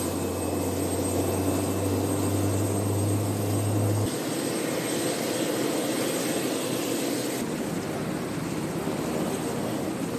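UH-60 Black Hawk helicopters running on the ground, twin turbine engines whining and rotors turning, a steady drone. A low hum sits under it for the first four seconds, and the sound changes abruptly about four and again about seven seconds in.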